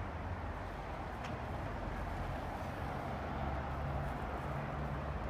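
Steady city street traffic noise, with a car's engine hum growing louder from about three seconds in as it approaches.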